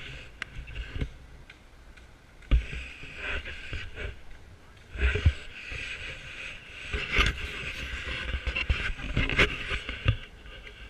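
Handling noise from a hand-held action camera being swung about: rubbing and scraping with scattered knocks and several dull thumps. Under it is a steady outdoor hubbub from a column of walkers passing.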